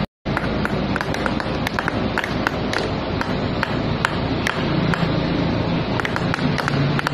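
Small hammer tapping a chasing chisel into a silver tray on a wooden block, making quick, light metallic taps, irregular and about three a second, over steady background noise. A low steady hum comes in about halfway.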